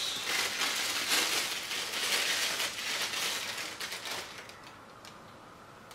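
Clear plastic wrapping crinkling and rustling in the hands as a camera lens is unwrapped from it. The crackle dies down about four and a half seconds in.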